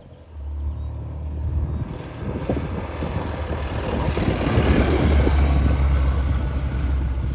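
1969 BSA Firebird Scrambler's 650cc parallel-twin engine running as the motorcycle rides up and passes close by. It grows louder to a peak about five seconds in and eases a little as it moves away.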